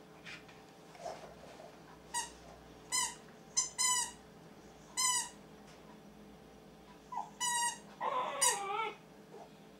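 Siberian husky puppy howling in short, high-pitched notes, about six of them, then a longer wavering howl near the end.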